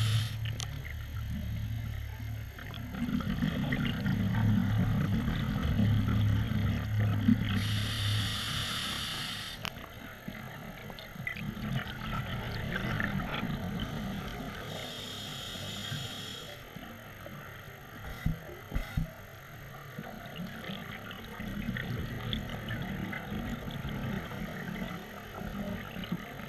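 Scuba regulator breathing heard underwater, a few slow breath cycles: short hissing inhales alternating with longer bubbling exhales. A few sharp clicks come about two-thirds of the way through.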